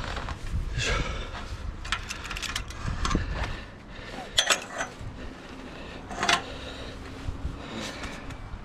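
Scattered clicks, knocks and scrapes of gloved hands and gear against a steel lattice antenna tower's pipe frame during a climb, the sharpest clicks about four and a half and six seconds in. Wind rumbles on the microphone during the first few seconds.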